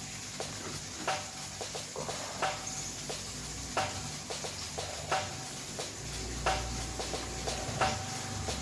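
Night outdoor ambience with a small animal's short chirp-like call repeating evenly about every second and a third, over a steady low hum and insect hiss.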